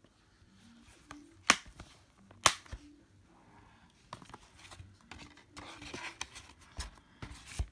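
A plastic DVD case being handled and snapped shut: two sharp clicks about a second and a half and two and a half seconds in, then lighter clicks and handling noise as the case is turned over.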